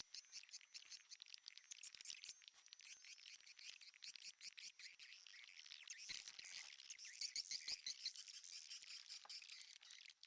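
Swiftlets twittering with dense, rapid clicking, fainter at first and a little louder about seven to eight seconds in.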